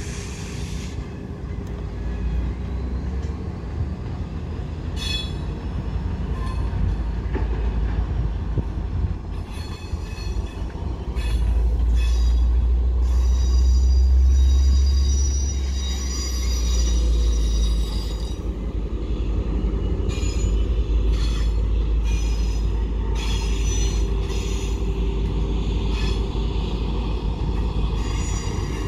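Commuter train of bilevel passenger coaches rolling past with a steady low rumble, loudest about halfway through. Its steel wheels squeal on and off in high, ringing tones.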